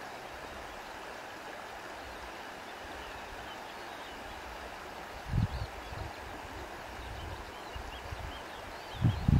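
Steady rushing of flowing water, with wind buffeting the microphone in low gusts about five seconds in and again near the end.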